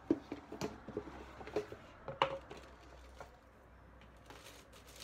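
Handling noise from a beauty subscription box and its packaging: light clicks, taps and soft rustling, busiest in the first two and a half seconds and fainter after that.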